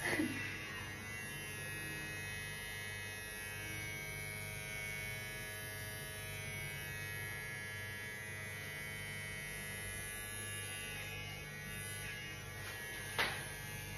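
Electric hair clippers running with a steady buzz while cutting hair. A brief click sounds near the end.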